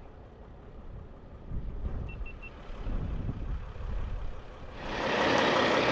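Low rumble of a vehicle driving, with three short faint beeps about two seconds in. Near the end a loud, steady hiss comes in suddenly.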